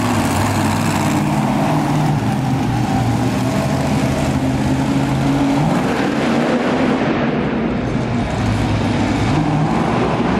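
Monster truck engine running loud under throttle as the truck drives over dirt, its pitch rising as it revs up about six seconds in as the truck goes over a dirt jump, and again near the end.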